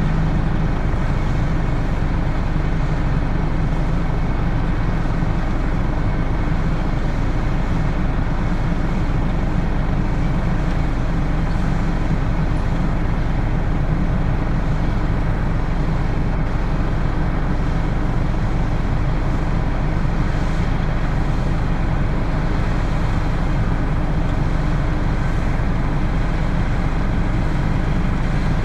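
Claas Lexion 6900 combine harvester running steadily: a constant, unchanging low engine drone with the hum of its working drives.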